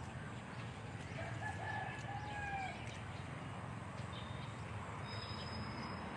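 A rooster crows once, faintly, about a second in, a drawn-out call lasting about a second and a half, over steady low background noise. A few faint high thin calls follow near the end.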